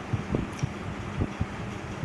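Soft, irregular low thumps and knocks from hand-mixing rice and dal on a steel plate, over a steady background hiss.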